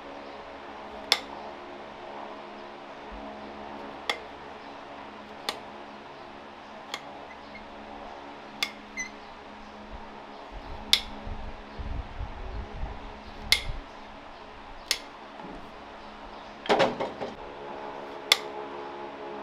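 Farrier's metal tools working on a horse's hoof: sharp metallic clicks and taps, about a dozen, spaced irregularly a second or two apart over a steady low hum.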